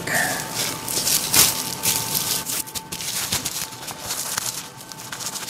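Plastic packaging bags crinkling and rustling as a packed part in a bubble bag is pushed into an outer plastic bag by hand. The sound is irregular, louder in the first couple of seconds and thinning out toward the end.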